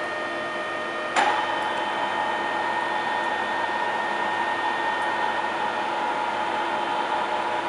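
Deckel FP4 NC milling machine running with a steady mechanical hum; about a second in a sharp click, and a louder steady whine joins and holds, as of a drive or the spindle switching on.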